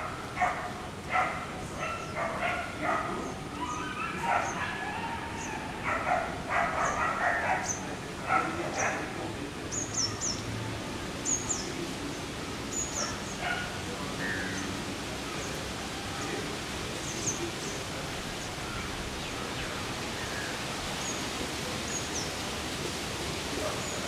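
Woodpecker calling: a loud, hoarse series of harsh notes in quick succession, which stops about nine seconds in. Faint, short, high chirps carry on after it.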